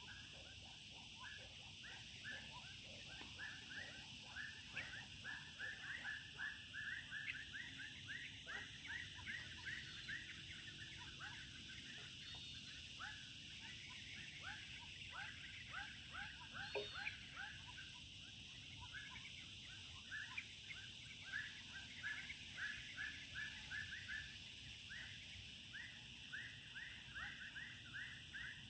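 Dusk chorus of small animals: short chirping calls repeated rapidly, several a second, over a steady high-pitched insect drone.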